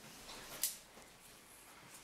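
Beading thread drawn tight through the beads of the pendant: faint rustle of handling, then one short high swish a little past halfway as the thread is pulled through.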